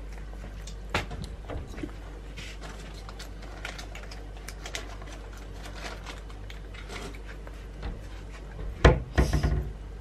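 Quiet room with a steady low hum and a few faint clicks, then a short cluster of heavy knocks and thumps on the wooden tabletop about nine seconds in, close to the microphone.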